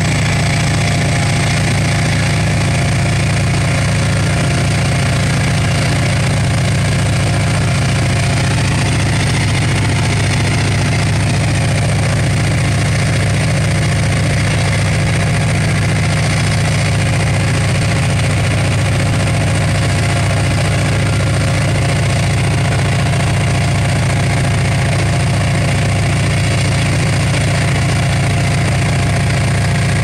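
Class 68 diesel-electric locomotive's Caterpillar V16 diesel engine idling steadily, a loud, even hum with no change in speed.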